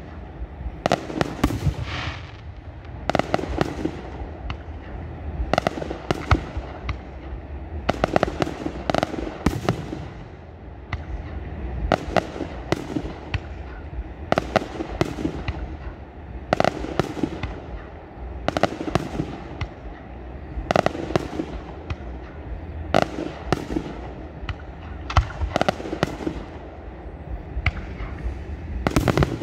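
Fireworks display: a continuous run of sharp bangs and crackles, coming in clusters every couple of seconds over a low rumble.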